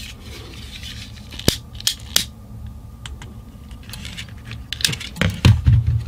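Handling noises from small workbench tools and a PVC battery holder: scattered sharp clicks and taps, with a few low bumps about five seconds in.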